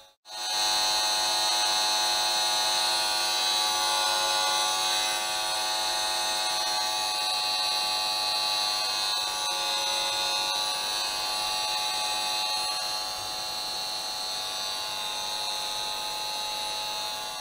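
Esmog Spion 5G EMF meter's built-in speaker giving a steady electric buzz made of many fixed tones, strongest high up: the meter's audio rendering of the electric field picked up at the mesh-shielded monitor. The buzz drops out for a moment just at the start, then holds steady.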